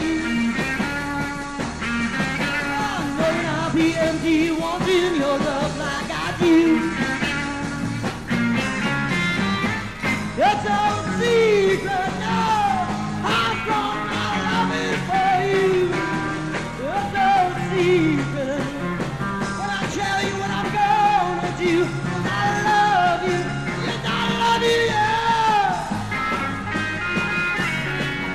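Rock band playing an instrumental passage with no sung words, its melody line sliding up and down in pitch over bass and drums, played from a vinyl record.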